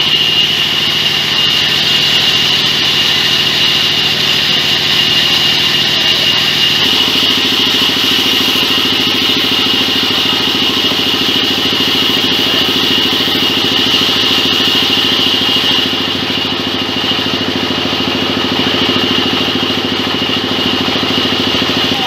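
Engine-driven band sawmill running steadily, with a constant high whine over the motor's drone. The engine note shifts about seven seconds in.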